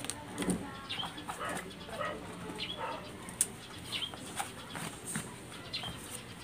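Quiet handling noise: light clicks and rustles as a rubber inner tube and paper are moved about on a table. Faint short chirps come several times in the background.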